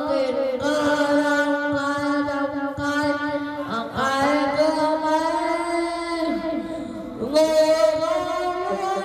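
A young man singing long, drawn-out notes into a handheld microphone, the pitch sliding up into a new note about four seconds in and again about seven seconds in.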